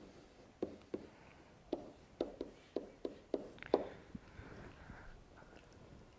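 Faint, short taps and light scratches of a stylus writing on a tablet or touchscreen, coming irregularly every third of a second or so.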